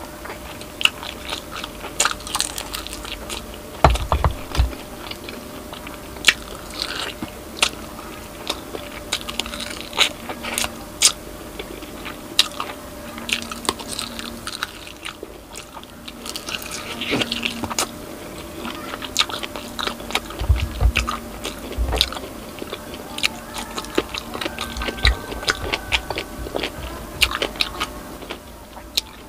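Close-miked biting and chewing of crispy pata, deep-fried pork knuckle: irregular crunching and crackling of the fried skin and meat, with wet chewing between bites. A few low thumps come in between, around 4 seconds in and again around 20 seconds.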